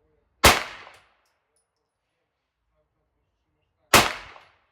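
Two shots from a 9mm AR9 PDW, about three and a half seconds apart, each dying away over about half a second. The gun is firing Critical Defense rounds and cycling them.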